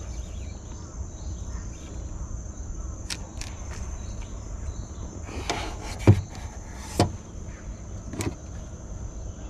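Steady high chirring of an insect chorus, with a few scattered knocks and taps over it, the loudest about six seconds in.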